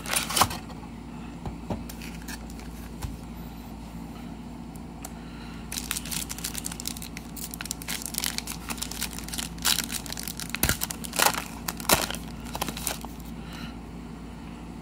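Foil trading-card pack being torn open and its wrapper crinkled: dense crackling from about six seconds in until shortly before the end, after a short crackle right at the start.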